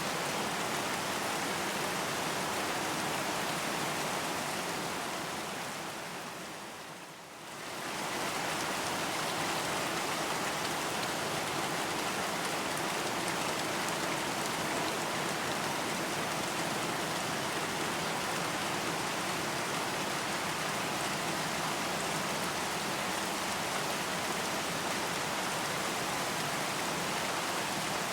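Steady rain, an even hiss with no separate drops standing out. It fades down briefly about seven seconds in and comes straight back up.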